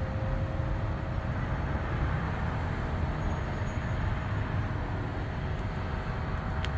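Steady low whirring hum with a thin steady tone in it, typical of a DC fast charger's cooling fans and power electronics while it charges; a single short click near the end.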